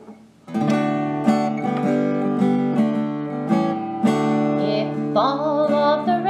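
Acoustic guitar strumming chords, coming in suddenly about half a second in as the opening of a children's song. A woman's singing voice joins near the end.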